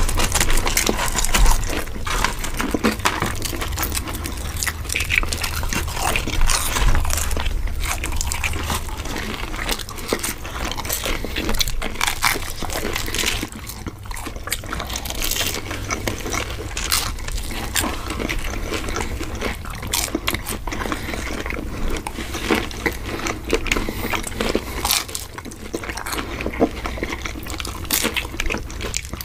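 Two people biting into and chewing breaded chicken nuggets close to the microphone: a dense, irregular run of crunches and chewing noises.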